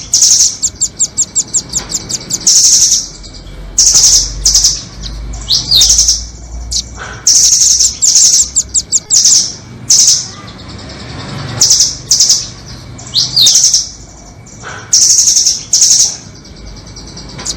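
Nuthatch calls: short bursts of high, rapid trilled chattering and sharp chips, repeated every second or two, with an occasional quick falling note.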